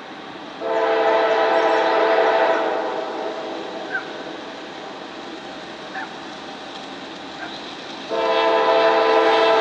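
A CSX freight locomotive's multi-chime air horn sounds for a grade crossing as the train approaches. One long blast comes about half a second in and fades after two seconds. A second long blast begins near the end, with the train's steady rumble in the gap between them.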